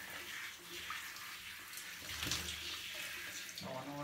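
Handheld shower head spraying a steady stream of water over a cat's wet fur to rinse out the shampoo, with a few splashes about two seconds in.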